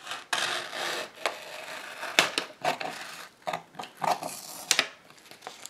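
Scissors cutting through a Pres-On self-adhesive mounting board: a rasping cut broken by several sharp snips at irregular intervals.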